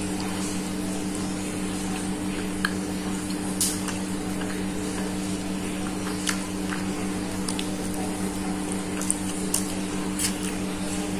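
A person chewing a bite of egg-wrapped skewered sausage, with soft wet mouth clicks now and then, over a steady low electrical hum.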